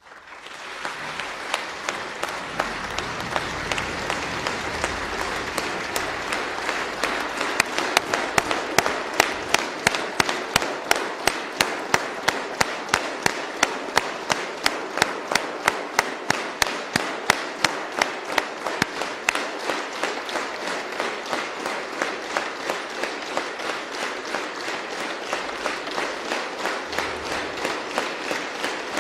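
A large audience applauding. About seven seconds in, the clapping falls into a rhythmic clap in unison at about two claps a second.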